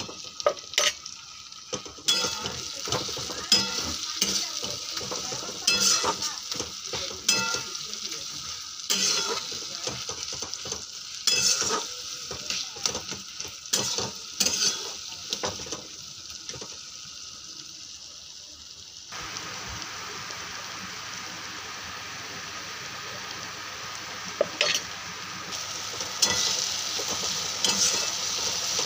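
Onion-tomato spice masala sizzling in a frying pan while a flat metal spatula stirs and scrapes it against the pan, with frequent scraping clicks. About two-thirds of the way through the clicks thin out and the sizzle becomes steadier.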